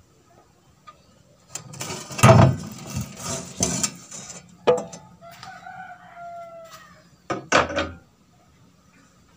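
Clattering and scraping of the rice husker's sheet-metal housing as its cover is handled, loudest early on. Mid-way a rooster crows in a long, slowly falling call, and a short clatter of metal follows near the end.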